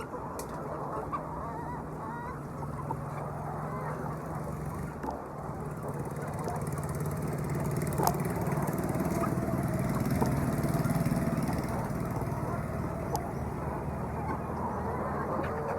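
Many hens clucking and calling in a poultry house over a steady low hum, with a few sharp clicks.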